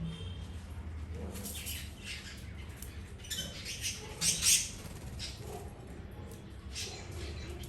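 Birds chirping in short, scattered calls, the loudest burst about four seconds in, over a low steady hum.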